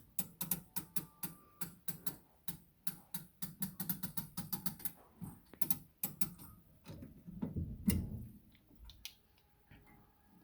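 Winding crank turning in a 1981 Howard Miller triple-chime grandfather clock, its ratchet clicking about three to four times a second as a weight is drawn up. The clicking slows to a few scattered clicks after about six seconds and stops near the end.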